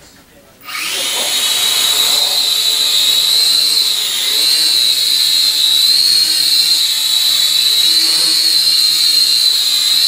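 Syma X5C quadcopter's four small brushed motors and propellers spinning up about a second in, the pitch rising quickly, then a loud, steady high whine with a slight waver as it lifts off and hovers.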